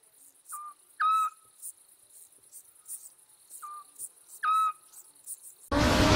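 Night ambience of crickets chirring steadily, with two short whistled owl hoots about three and a half seconds apart. Near the end a sudden loud rushing sound effect with a low drone in it cuts in.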